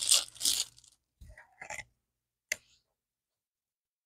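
Brief rustling and crinkling handling noises, a few short scrapes, then one sharp click about two and a half seconds in.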